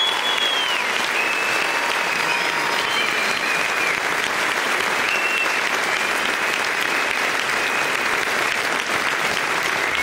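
Concert audience applauding and cheering, steady clapping with several long, high whistles over it.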